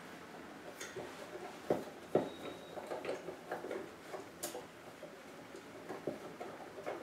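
Handling of a scissor-arm microphone stand's plastic mic clip: scattered small clicks and knocks as the clip is turned and worked in the hands, with a brief thin high ring about two seconds in.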